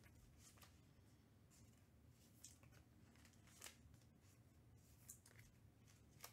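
Near silence, broken by faint, scattered soft clicks and rustles of trading cards and plastic card sleeves being handled.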